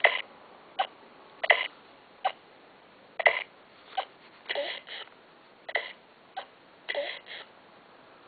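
A baby at a bottle feed making about a dozen short, sharp sounds, roughly one every half second to second, a few of them with a brief voiced rise.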